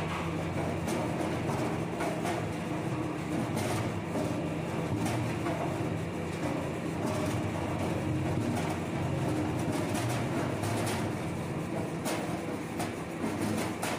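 Soap processing machine running steadily, its motor and turning shaft giving a low hum, with scattered light knocks as soap chips drop into the steel hopper.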